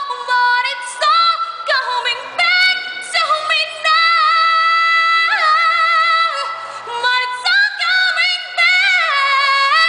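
A woman singing a cappella, belting long high notes with vibrato, several held for a second or more with brief breaths between phrases.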